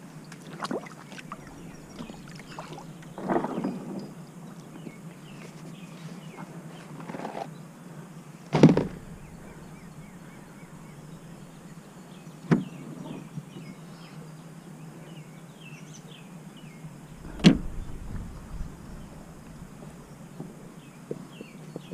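Knocks and thumps from an Old Town Topwater PDL pedal kayak's plastic hull and fittings being handled as it is pushed off the bank into the water. There are about six of them, spaced apart, and the loudest comes a little over a third of the way through.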